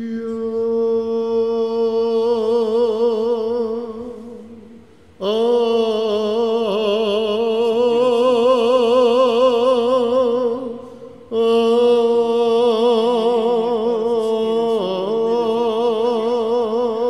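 Byzantine chant sung by a single voice in long, ornamented held phrases. It comes in three phrases, with breaths about 4 and 11 seconds in.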